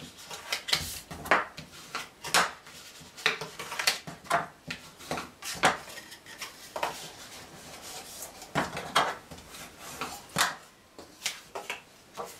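Cardstock being folded along its score lines and creased flat by hand on a scoring board: irregular sharp paper clicks and short rubbing scrapes, about one or two a second.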